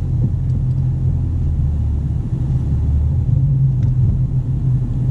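Car engine running with a steady low hum, heard from inside the cabin, as a learner driver tries to pull away in first gear in a manual car.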